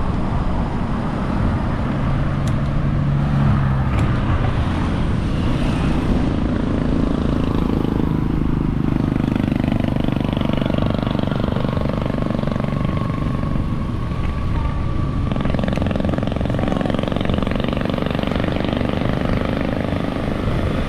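A motor vehicle's engine running while riding along a road, its pitch shifting a little, over steady wind and road noise.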